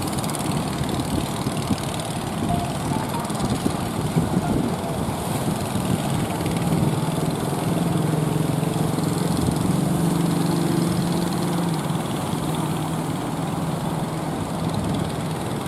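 Small engine running steadily under a constant rush of wind and water, its low hum growing stronger about six seconds in and easing off again near the end.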